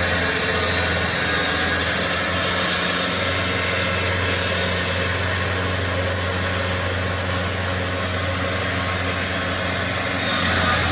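Stump grinder's engine running steadily at a constant speed, a steady low tone under a wash of noise.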